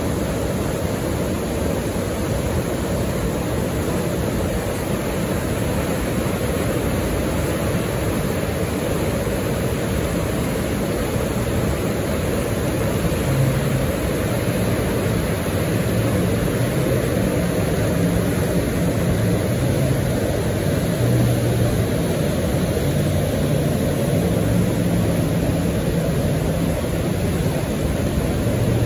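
Steady roar of whitewater rapids. From about halfway in, a jet boat's engine joins it, a drone whose pitch shifts as the boat powers up through the rapid.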